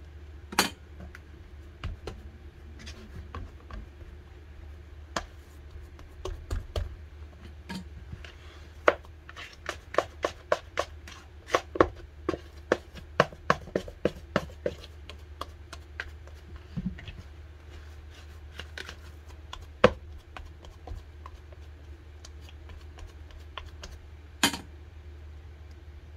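Hand kneading pumpkin and glutinous-rice-flour dough in a plastic bowl: a string of sharp taps and knocks as the bowl and fingers knock about, coming quickly for several seconds in the middle, over a steady low hum.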